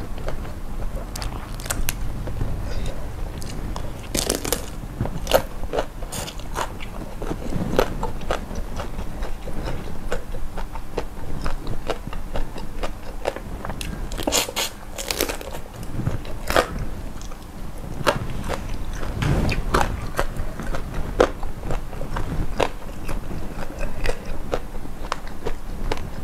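A person eating close to the microphone: irregular crisp bites and crunches with chewing between them, the sound of spicy prawns being eaten with their shells on.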